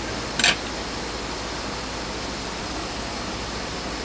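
River water rushing steadily, an even noise with a faint steady high tone over it. A brief louder burst comes about half a second in.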